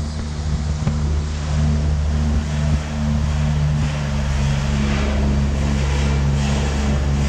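Small boat's motor running at a steady pitch under way, with a steady rushing noise over it.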